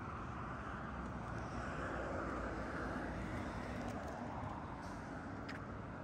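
Steady outdoor background noise: a low, continuous rumble under an even hiss, with a faint short tick about five and a half seconds in.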